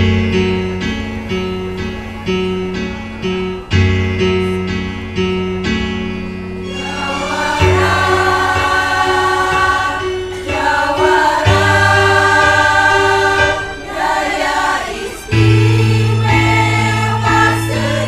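Women's choir singing to instrumental accompaniment. The music starts abruptly with a bass line and a regular beat, and the choir's voices come in about seven seconds in.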